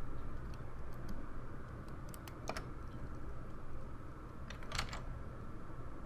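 A few sharp clicks of a computer keyboard and mouse, a pair a little after two seconds and a short cluster near the end, over a low steady hum from the recording setup.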